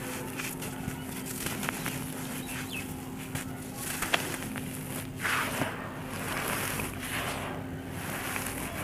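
Dry red soil crumbling and trickling through bare hands, compacted chunks breaking into gritty grains that patter onto a dirt floor, with a sharp crack about four seconds in as a chunk is snapped.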